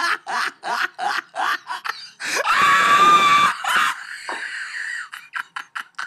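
A person laughing in quick bursts, about four a second, then a long high-pitched scream a little over two seconds in.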